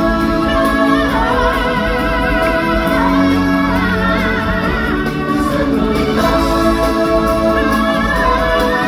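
Music from a stage show: singers holding long notes with wavering vibrato over orchestral accompaniment.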